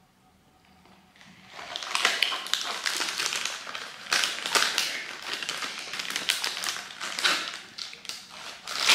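Foil cookie wrapper being torn open and crinkled by hand, a dense crackling rustle that starts about a second and a half in.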